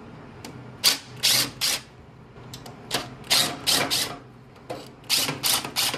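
Cordless drill-driver spinning in short trigger bursts as it backs out three screws on an APC Smart-UPS rack unit: three clusters of brief whirring bursts, one for each screw.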